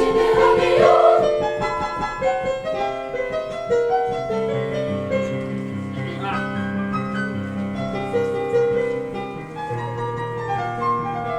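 Piano accompaniment playing an instrumental passage of a children's choral song, with a bass line entering about halfway through. The choir's singing trails off in the first second or so.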